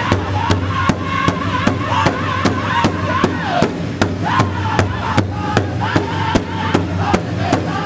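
Powwow drum group singing in unison around a large hide-topped drum. Several drummers strike the drum together in a steady beat of about two and a half strokes a second under high-pitched group singing.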